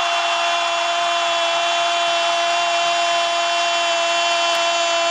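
Steady noise of a large stadium crowd, with a sustained droning tone running unchanged over it.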